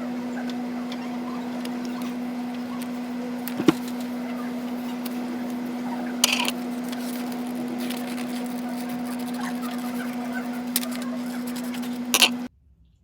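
A steady electric hum, like an appliance's motor running, with a few sharp clicks and knocks over it; the hum cuts off suddenly near the end.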